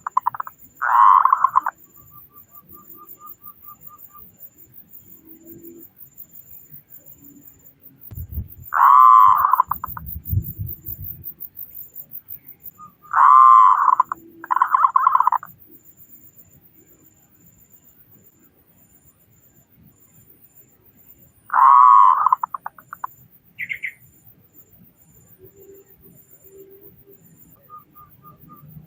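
Zebra dove (perkutut) cooing in short rolling phrases, each under a second and ending in a rapid stutter. The phrases come about a second in, near nine seconds, twice around thirteen to fifteen seconds and near twenty-two seconds. A faint high steady ticking, like an insect, runs underneath, and there is a low rumble around nine to eleven seconds.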